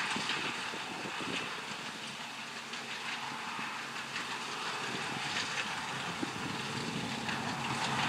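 New Holland CX8040 combine harvester running steadily as it cuts wheat, a constant mechanical hum and rush of the engine and threshing gear.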